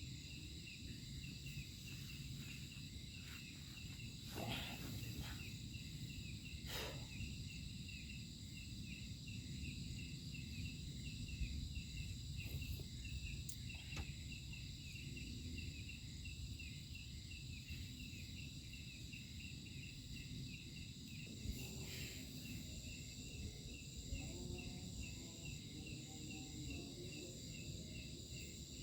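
Night insects: crickets chirping in a quick, regular rhythm over a continuous high-pitched insect drone, with a low rumble underneath and a few soft clicks.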